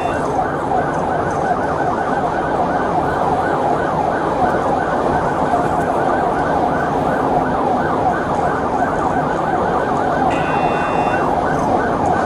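Police vehicle siren in a fast, repeating up-and-down yelp, heard from inside the moving patrol car's cabin. A brief high electronic tone sounds about ten seconds in.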